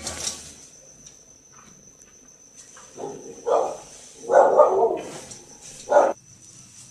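A dog barking several times, starting about three seconds in.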